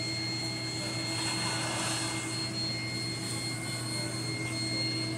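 Steady machine hum and hiss of aquarium filters and pumps, with a low drone and a couple of faint, thin high whining tones that hold level throughout.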